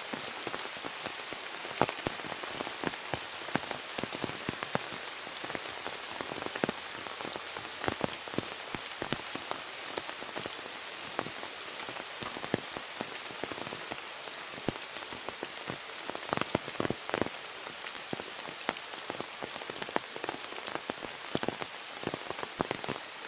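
Steady rain falling, an even hiss with many separate drops ticking sharply onto a hard surface close by.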